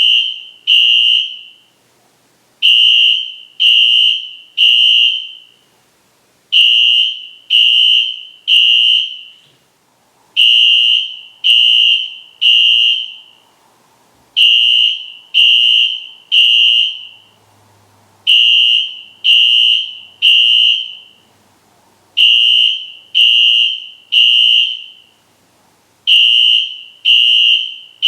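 Wheelock fire alarm horn sounding a high, harsh tone in groups of three short blasts, each group repeating about every four seconds. This is the temporal-three pattern that signals building evacuation.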